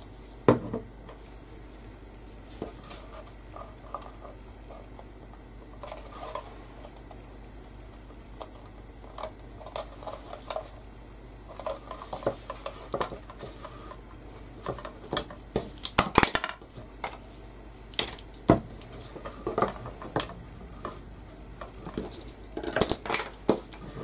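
Irregular light clicks, taps and small clatters of hard painted craft pieces being handled and fitted together on a work surface, busier in the second half.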